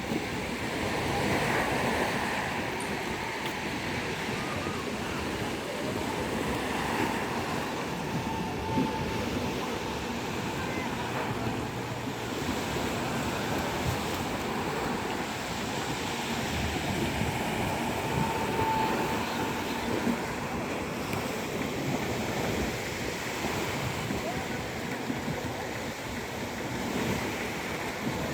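Sea surf washing onto the beach, a steady rush of waves.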